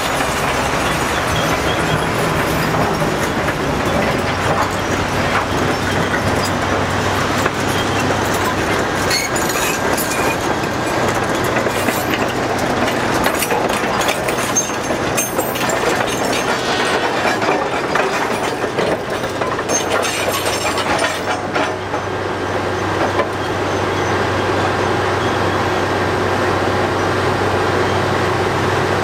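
Big diesel engines of a Cat 5130B mining excavator and a Cat 777 haul truck running, with clanking and rattling as the excavator swings and empties its bucket of dirt and rock into the truck's bed. Near the end the engine note settles into a steady pull as the loaded truck drives off.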